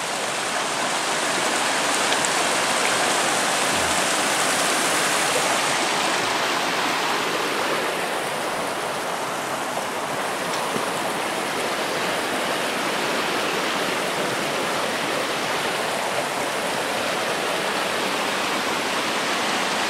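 A small creek flowing steadily, the water rushing and splashing over rocks.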